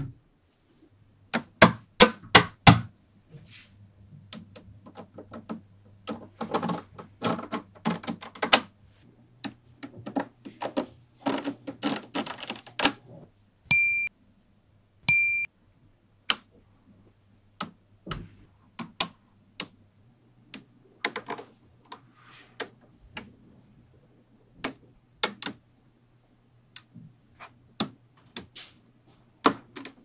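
Magnetic balls clicking and clacking as they snap together, a quick run of sharp clicks in the first half, then single clicks every second or so. Two short bright dings come about 14 and 15 seconds in.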